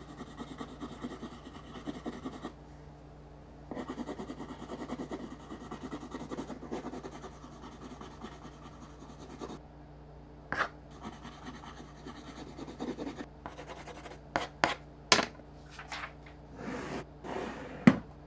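Graphite pencil scratching on paper in quick drawing strokes, with a short pause early on. In the second half come several sharp knocks and taps with some rubbing between them, the loudest knock near the end, over a steady low hum.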